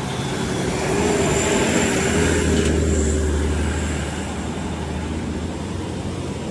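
Small truck's engine running as the truck drives through deep mud ruts and passes close by. It grows louder over the first couple of seconds, then fades as it moves on.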